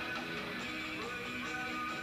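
Early-90s goth rock band playing live: strummed electric guitar over bass and drums in a steady, dense wash, recorded on an old VHS camcorder from the back of a club.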